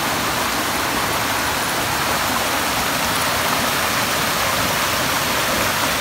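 Shallow rocky stream running over stones and a small cascade, a steady even rush of water.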